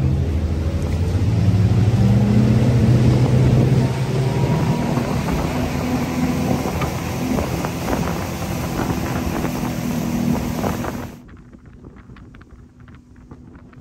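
Boat engine speeding up, its pitch rising over the first few seconds, then running steadily at speed with a rush of wind and water. About eleven seconds in it gives way to a much quieter wash of wind and water with faint ticks.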